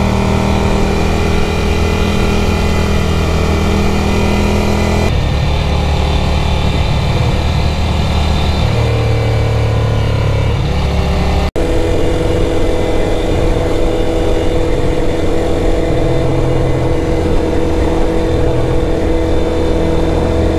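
Motorcycle engine running steadily while riding, with wind noise; its pitch jumps abruptly twice where the footage is cut, and rises as the bike accelerates shortly before the second cut.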